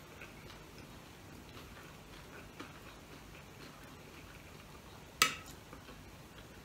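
Quiet eating sounds: a man chewing a fried bean-sprout spring roll (lumpiang togue) with faint, irregular small clicks from his mouth and utensils, and one sharp click about five seconds in.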